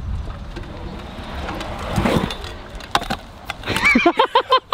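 Stunt scooter wheels rolling over rough, grainy concrete, a low rumble that swells about halfway through as the rider comes up the bank. Near the end the rolling stops and a man's voice calls out briefly.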